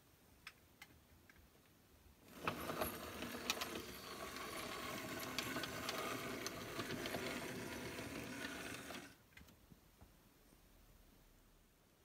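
00 gauge model steam locomotive running on the layout's track, its small motor and gears whirring with light clicks from the wheels on the rails. The sound starts about two seconds in and cuts off abruptly about nine seconds in.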